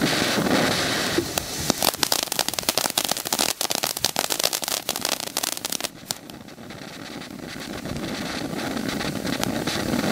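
Dominator 'Xmas in July' fireworks ground fountain spraying sparks: a steady hissing gush with dense crackling from about a second in until about six seconds, when it drops to a quieter hiss that builds again toward the end.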